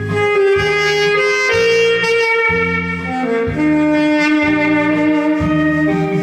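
Saxophone playing a slow melody of long held notes over a backing track with a pulsing bass line.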